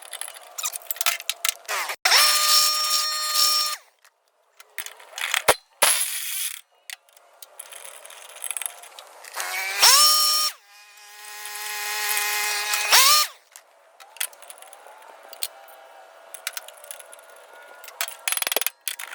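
Cordless drill running in three short bursts, each spinning up with a quick rising whine and then holding a steady pitch, with tool clatter and clicks between them.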